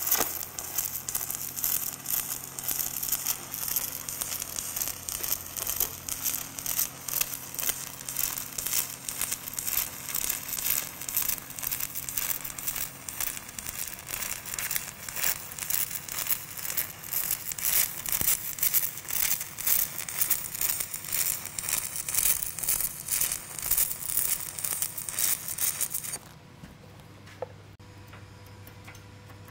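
Aluminum stick electrode arc welding an aluminum T-joint: the arc crackles steadily, with a low hum under it for the first half, then cuts off suddenly about 26 seconds in.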